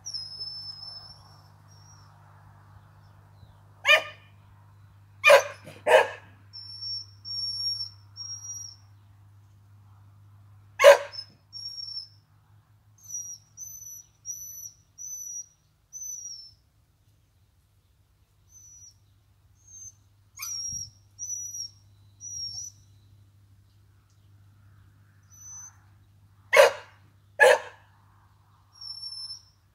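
Ducklings peeping in short high-pitched runs, while a dog barks about six times, some of them in quick pairs; the barks are the loudest sounds. A faint low hum fades out about halfway.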